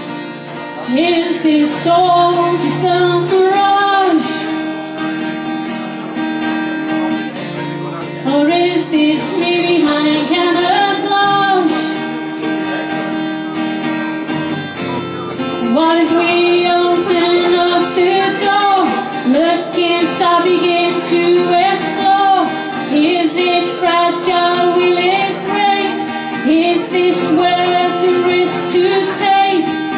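A woman singing a slow song to her own strummed acoustic guitar, phrase by phrase, with short guitar-only breaks between the sung lines.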